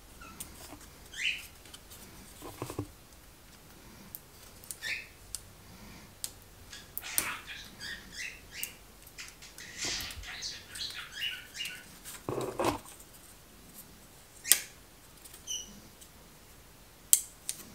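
Sparse small clicks, crinkles and light squeaky scrapes from hands handling a lightweight indoor model airplane as its film-covered wing and tail are fitted onto the stick fuselage.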